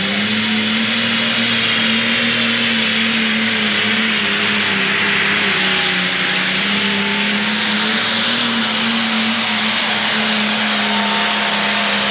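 Pro stock pulling tractor's single-turbocharged diesel engine running flat out under full load as it drags a weight-transfer sled. It holds a steady, loud note with a rushing hiss over it.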